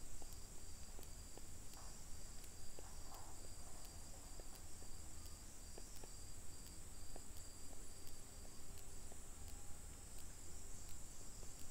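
Crickets chirping steadily in the background, a high, evenly pulsing trill, with faint light taps of a stylus writing on a tablet screen.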